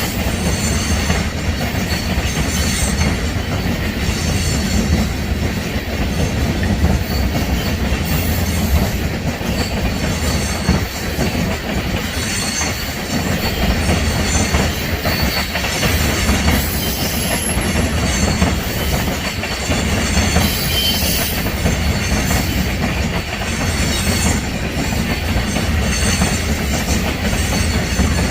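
Freight train passing close by: railcar wheels clattering over the rail joints with a steady low rumble and intermittent high-pitched wheel squeal.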